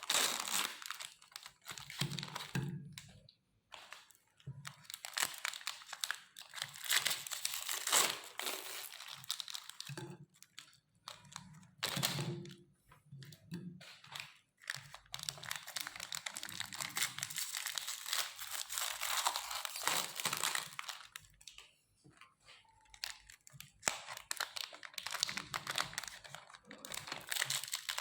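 Wafer biscuits being crushed in a meat grinder: irregular crunching and crackling in bursts, with short pauses between them.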